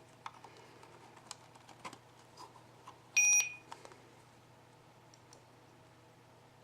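A single electronic beep from a GSM alarm unit, one steady tone of about half a second just after three seconds in, with light clicks from the unit being handled before and after it.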